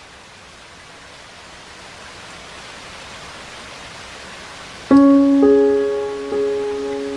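Steady hiss of heavy rain, slowly growing louder. About five seconds in, music comes in over it with a few loud struck keyboard notes that ring and fade.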